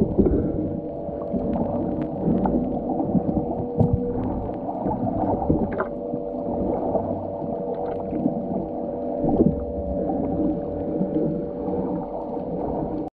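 Muffled underwater ambience as heard through a camera's waterproof housing: a low, murky rumble with a steady hum and scattered small clicks and taps.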